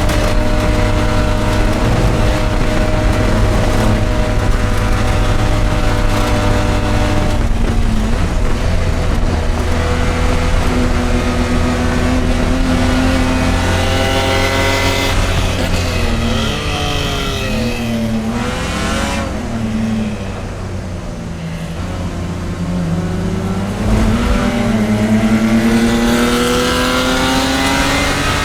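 Race car engine running hard at high revs. The pitch steps down about seven seconds in, dips and wobbles with a quieter stretch past the middle, then climbs steadily as the car accelerates near the end.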